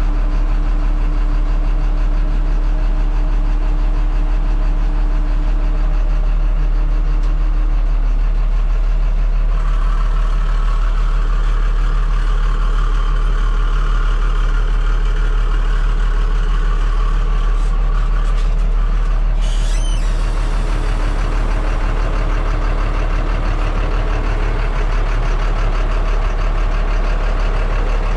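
1996 Chevrolet Kodiak dump truck engine idling steadily, heard from inside the cab. About ten seconds in a hiss joins it and cuts off with a few clicks about twenty seconds in.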